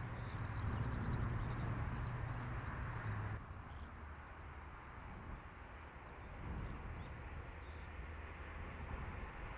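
Outdoor rural background noise. A steady low hum stops abruptly a little over three seconds in. After that the background is quieter, with a few bird chirps and a faint rumble of a distant train growing louder from about six seconds in.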